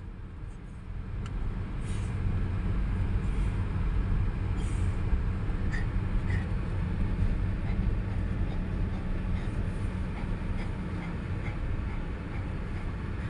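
Steady low rumble of a Honda car's engine and tyres, heard from inside the cabin as it is driven slowly. A few faint ticks sound here and there.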